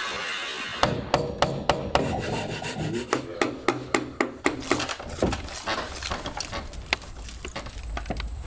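Wood being worked by hand: a run of sharp strokes or taps on wood, two to three a second, thinning out after about five seconds.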